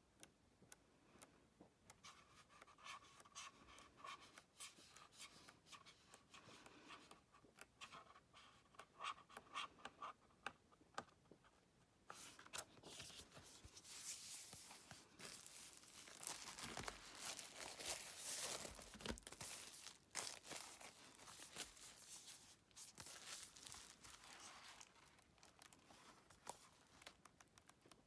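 Faint paper handling as the glossy pages of a photobook are turned by hand: a run of soft page flicks, then a louder stretch of paper rustling in the middle as a sheet is lifted and handled, easing off near the end.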